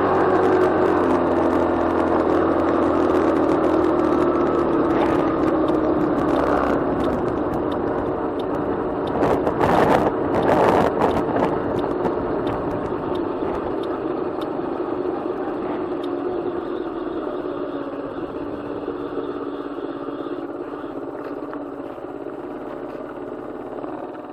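Ride noise picked up by a bike-mounted camera: road and wind noise with a humming tone that slowly falls in pitch. There is a burst of rattling over bumps about ten seconds in, and the sound grows gradually quieter toward the end.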